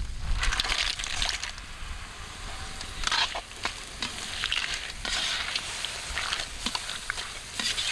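Food sizzling as it fries in a hot pan and is stirred, the hiss swelling and easing with each stir, with sharp clicks and scrapes of the spoon against the pan.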